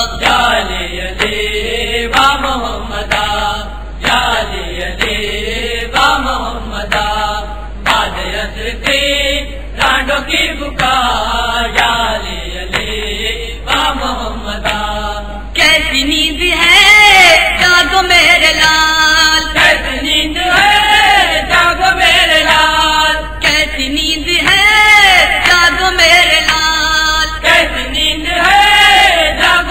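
A male voice chanting an Urdu noha, a mourning lament, unaccompanied, in long sung phrases. About halfway through, the voice becomes louder and brighter.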